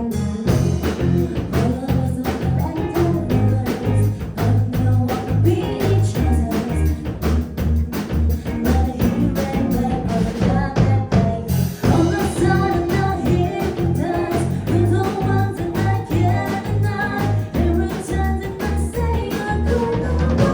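Live band playing an instrumental passage of a pop song: drum kit, bass guitar, guitar and piano, with a pulsing bass line under a steady beat. About halfway through the music drops for a moment and comes back in with a loud crash-like hit.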